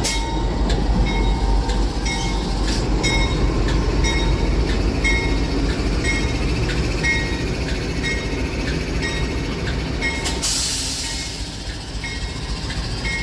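Train running on the track, a steady low rumble with regular clicks from the wheels. A burst of hissing starts about ten seconds in, and the rumble eases a little after it.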